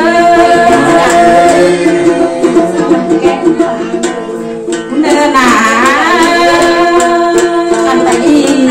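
A woman singing a Thái folk song into a microphone in long, wavering held notes, accompanied by a plucked long-necked gourd lute (tính tẩu). Her voice drops away briefly about four seconds in, then returns with a rising and falling run.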